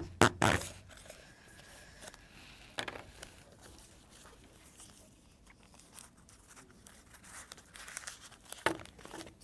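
A clear plastic packaging tube opened by hand, with a few sharp crackles at the start, then the soft crinkling of oil paper being unwrapped, growing louder again near the end.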